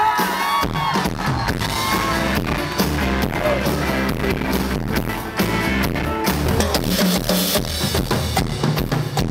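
Live band music: a pop-rock song with a steady drum-kit beat, bass and electric guitar.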